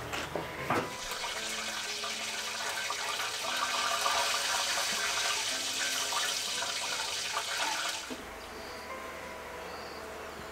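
Charcoal grill hissing and sizzling as oil and fat drip from a whole duck onto the hot coals, with a couple of crackles at the start; the hiss swells a little mid-way and cuts off abruptly about eight seconds in.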